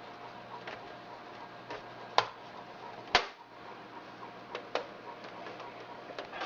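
Sharp clicks and snaps as the case of a Sony VAIO VGC-JS240J all-in-one computer is worked apart by hand, with its back cover being pulled away. Two louder snaps come about two and three seconds in, with lighter clicks scattered between.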